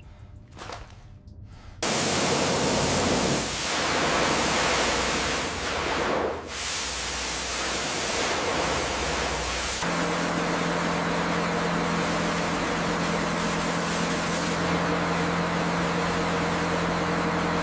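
Pressure washer's high-pressure water jet spraying with a loud, steady hiss, starting suddenly about two seconds in. From about halfway, a steady low hum joins under the spray.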